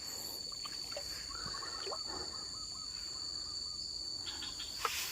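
Insects shrilling steadily in one continuous high-pitched tone, with a short run of faint chirps in the middle and a few small clicks near the end.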